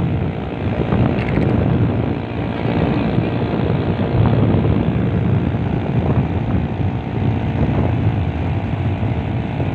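An engine running steadily under a dense, low rumble, heard while travelling in a vehicle.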